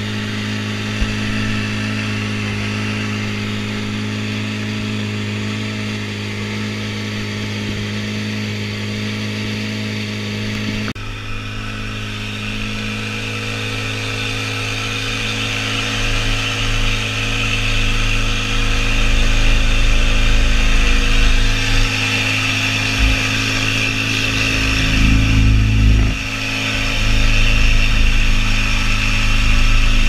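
An inflatable boat's outboard motor runs steadily at speed, with water rushing past the hull. About ten seconds in, the churning and spray of the wake get louder and a heavier low rumble builds.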